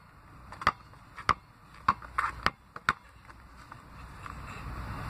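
Basketball being dribbled on asphalt: a run of sharp bounces, about two a second, that stops about three seconds in.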